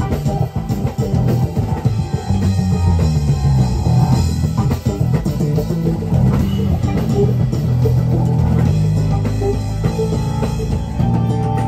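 Live band playing, with an electric bass to the fore over drum kit and electric guitar. The bass line moves in strong low notes.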